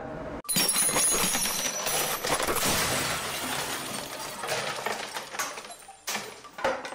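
Logo-intro sound effect: a sudden crash like shattering glass about half a second in, its noise slowly fading over several seconds, followed by two short hits near the end.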